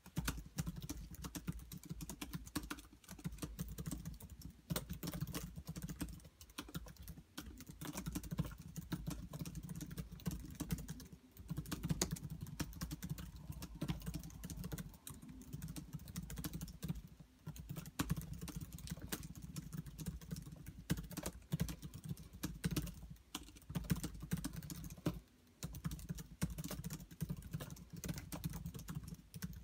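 Fast typing on a laptop keyboard: a rapid, continuous clatter of key clicks, broken by a few brief pauses.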